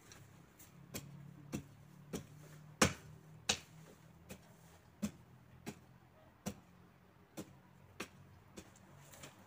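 Garden hoe striking the soil again and again, working compost into the bed: a sharp tick about every three-quarters of a second, the loudest about three seconds in.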